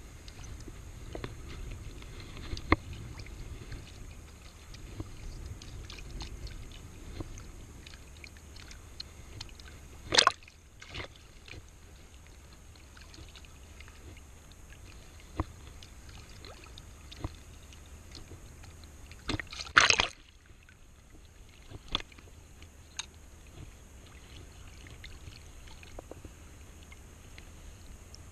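Shallow seawater sloshing and lapping close by, over a steady low rumble, with a few sharp knocks and two louder short splashy bursts about ten and twenty seconds in.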